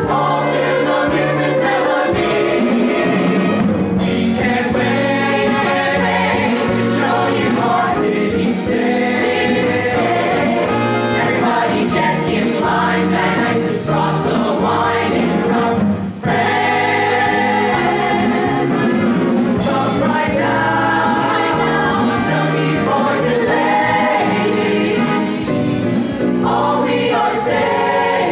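Musical theatre ensemble number: a chorus of voices singing over a pit band with a steady drum beat. The music cuts out briefly about halfway through.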